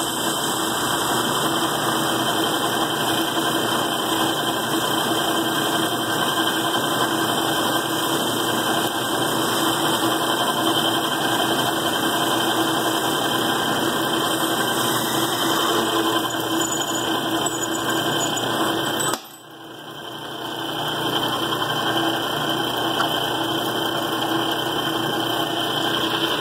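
Worn old metal lathe running steadily, its electric motor humming. About two-thirds of the way through the sound drops off suddenly and then builds back up over a couple of seconds.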